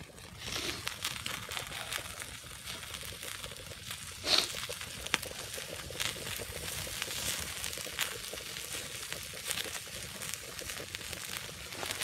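Log campfire burning, a steady hiss dotted with small crackles and one sharper pop about four seconds in.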